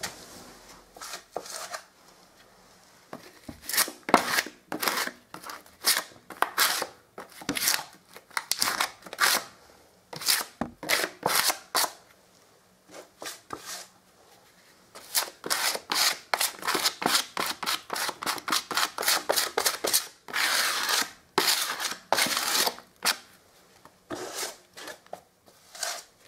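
Filling blade scraping and pressing powder filler into a hole in a plaster wall, in repeated short strokes that come thick and fast about halfway through.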